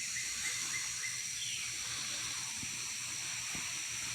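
Pre-dawn outdoor ambience: a steady high-pitched hiss of night insects, with one short falling chirp about a second and a half in.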